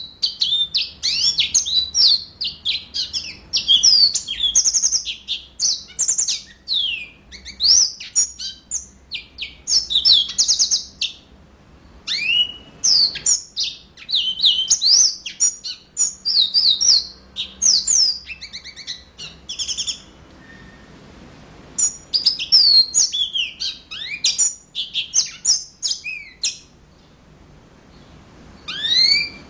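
Yellow-fronted canary (Mozambique canary) singing at full strength: long runs of fast, varied twittering notes, high-pitched, broken by a few short pauses.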